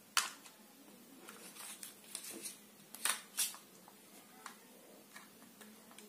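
Hands and a screwdriver handling a table fan motor and its wiring: a sharp click, some scraping and light ticking, then two louder clicks about three seconds in.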